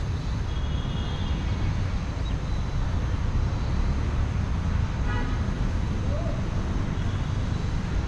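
Steady low rumble of wind on the microphone mixed with distant city traffic, with a couple of faint bird chirps, one about a second in and one about five seconds in.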